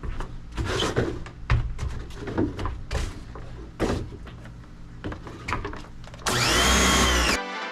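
Irregular scraping and knocking against wood for about six seconds. Then comes a loud sound about a second long whose tone rises and falls in an arch, an edited-in sound effect, and music starts right at the end.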